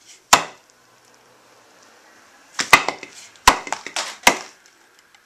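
A pickeroon's pointed forged-steel tip striking and bedding into a small wooden block: one sharp knock, then a quick run of about four more knocks from two and a half seconds in.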